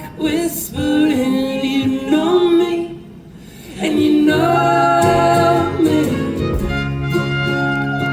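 Live band music, several voices singing the song's closing line in harmony. About three seconds in the voices drop away briefly, then return with long held notes over a steady low chord.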